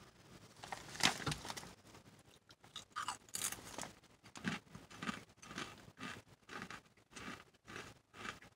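A person bites into wavy potato chips, with one loud crunch about a second in. A run of chewing crunches follows, roughly one every half second.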